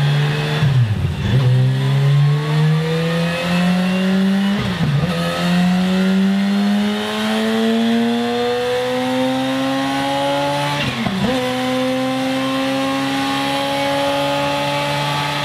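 Kawasaki H2 SX's 998cc supercharged inline-four revving up on a dyno through a Scorpion Serket Parallel slip-on exhaust. The revs climb steadily, drop briefly at each of three gear changes about one, five and eleven seconds in, then hold nearly steady near the end.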